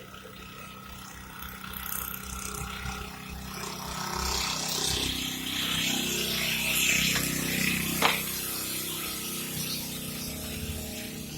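Small hand-tool handling noises on a circuit board: scraping and rustling that grows louder partway through, with one sharp click about eight seconds in.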